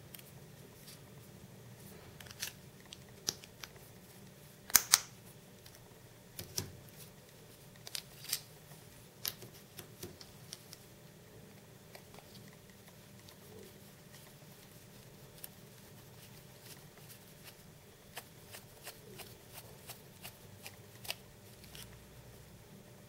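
Handling of a plastic Canon CLI-8 ink cartridge and its orange clip: sharp plastic clicks and taps, the two loudest close together about five seconds in. Lighter ticks and scrapes follow as a small hand-twisted drill bit bores a refill hole in the cartridge.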